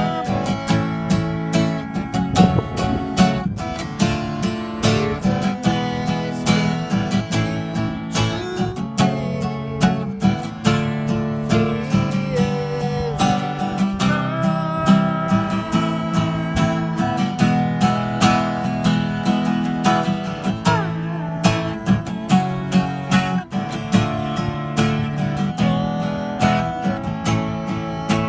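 Music: strummed acoustic guitar with a steady rhythm.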